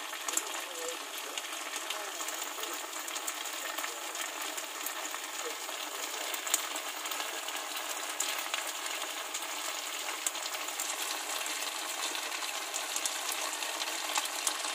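Pork pieces frying in a reducing oyster sauce in a frying pan: a steady sizzle with many fine crackles and pops as the sauce cooks down and dries.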